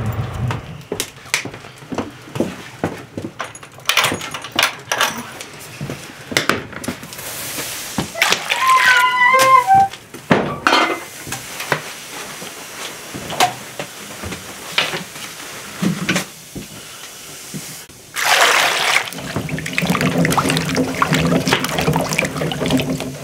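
Scattered clicks and knocks of footsteps and handling, with a short squeak near the middle; then, for the last few seconds, water sloshing as hands wash potatoes and a carrot in a metal bowl of water.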